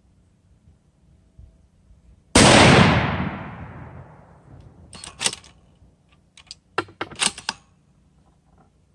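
A single rifle shot from a Savage Trophy Predator Hunter bolt-action in .243 Winchester, dying away over about two seconds. A few seconds later come two short sets of metallic clicks as the bolt is worked.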